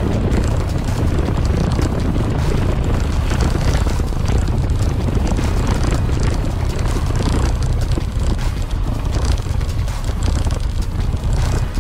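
Mountain bike rolling fast down a loose gravel and stone track: a steady low rumble of wind on the bike-mounted microphone and of the tyres over the stones, with scattered clicks and rattles from the bike.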